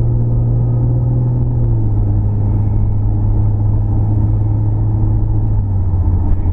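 A car's engine and road noise heard from inside the cabin while driving, a steady low drone whose pitch drops slightly about two seconds in.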